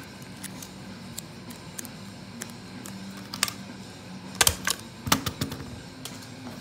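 Folded paper slips rustling and crinkling in the hand: a run of small clicks, with a few louder crackles about four and a half and five seconds in.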